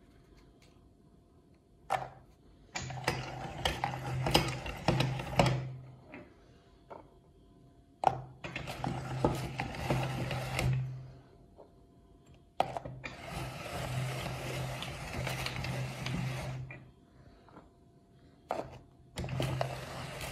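Hand-cranked metal meat grinder crushing dry cookies: four spells of cranking, each a few seconds long, with crunching and grinding from the auger. Each spell starts with a sharp knock.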